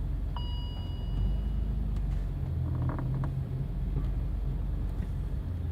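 BMW E46 M3 driving, a steady low engine and road rumble heard from inside the cabin. A brief high electronic beep sounds about half a second in, and a few light clicks come around three seconds in.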